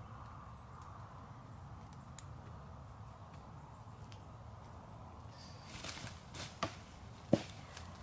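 Steps shuffling through dry fallen leaves, a small click, then one sharp crack about seven seconds in.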